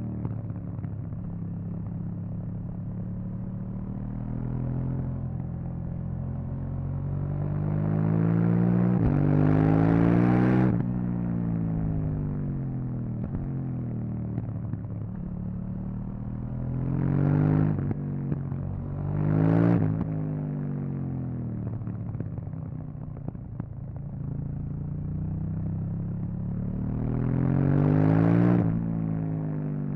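KTM 790 Duke's parallel-twin engine through its stock exhaust while riding. The engine note climbs hard under throttle about a third of the way in, twice in quick short bursts past the halfway mark, and once more near the end, dropping back in pitch each time the throttle closes.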